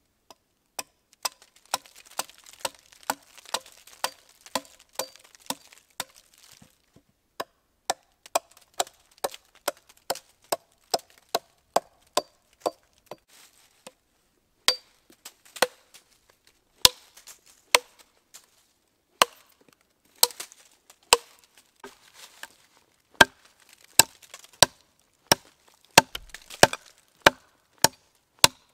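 Small 600 g Urnieta forest axe chopping into the edge of a split wooden board resting on a stump, to shape it into a chopping board. The sharp strikes come about two a second with a couple of short pauses, and are louder in the second half.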